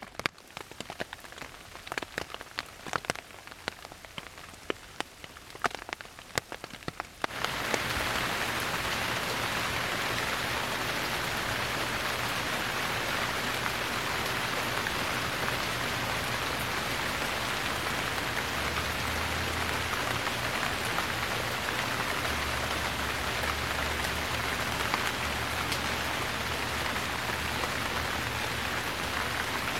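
Rain in a forest: for the first seven seconds or so, scattered separate drops tick and patter. Then a dense, steady rush of rainfall sets in abruptly and holds evenly to the end.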